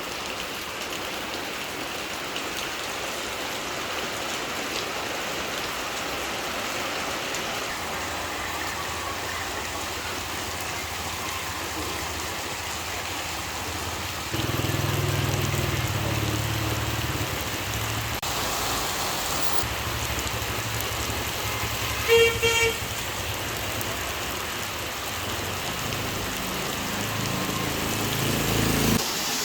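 Steady rain hiss, with a motor vehicle's engine rumbling from about a quarter of the way in and growing louder near the middle and end. A brief vehicle horn toot sounds about three-quarters through and is the loudest sound.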